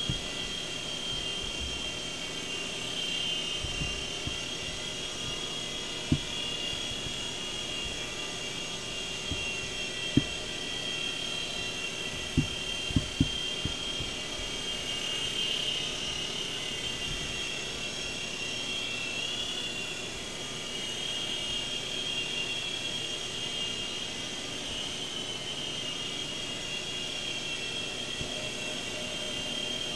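Small electric RC helicopter flying, its motor and rotor giving a steady high whine that wavers slightly in pitch. A few short sharp knocks stand out over it.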